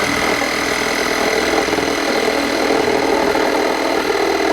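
Hand-held power saw running steadily as it cuts through plywood wall sheathing, with a steady high whine over a dense rattling vibration.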